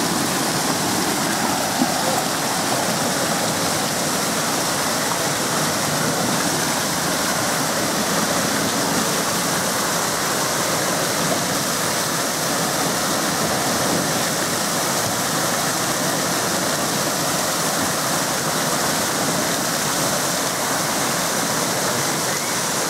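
Steady rush of water falling and splashing from water-park fountains and slides, an even hiss with no breaks.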